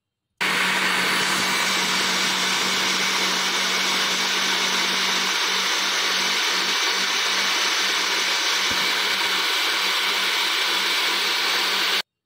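Countertop blender with a glass jar running steadily at full speed, blending onion, tomato and yogurt into a liquid paste. It switches on suddenly just after the start and cuts off abruptly near the end.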